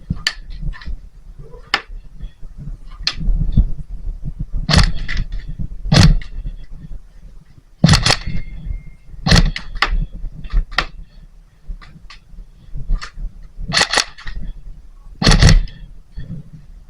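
Airsoft guns firing single shots at irregular intervals, a dozen or so sharp cracks, some in quick pairs, over low rumbling from movement and handling.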